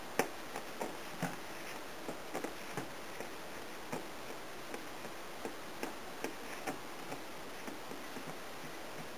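Soft, irregular clicks and taps of fingers pressing a peanut butter crust into a metal springform pan, roughly one or two a second, over a steady hiss.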